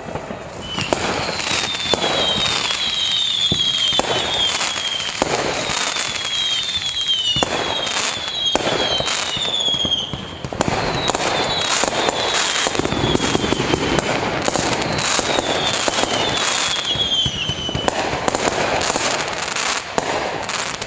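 Aerial fireworks going off in a dense barrage: a steady run of bangs and crackles, with repeated short whistles that fall in pitch.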